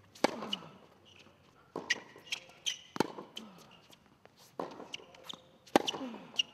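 Tennis balls hit back and forth in a baseline rally: sharp pops of racket strings striking the ball and the ball bouncing on the hard court, a loud hit roughly every one to one and a half seconds, with quieter bounces and footwork between them.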